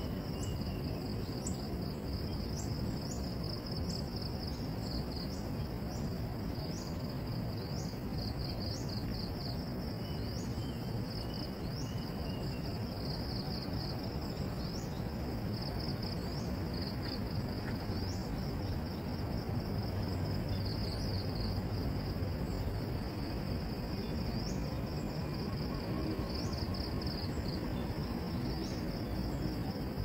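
Insects chirping in rapid pulsed trills that repeat every second or so, over a steady low background noise.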